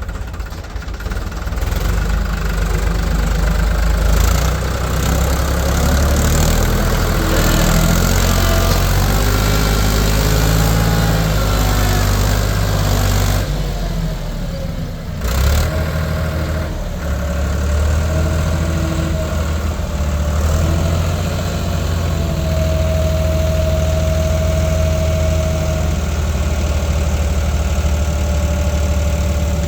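Diesel engine of heavy machinery running steadily, its note changing as the load shifts, with a short dip about halfway through and a thin steady whine later on.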